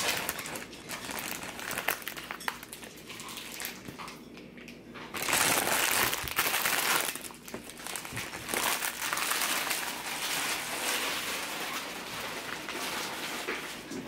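Plastic packaging crinkling and rustling as it is handled. It is loudest for a couple of seconds about five seconds in, then carries on more softly.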